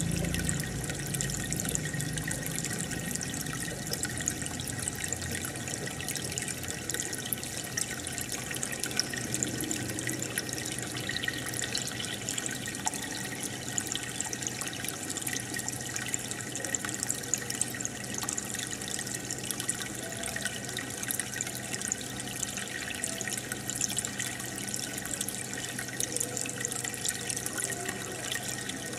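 Aquarium filter and air bubbles: a steady bubbling and trickling of water with fine crackling pops, over a low steady hum from the pump.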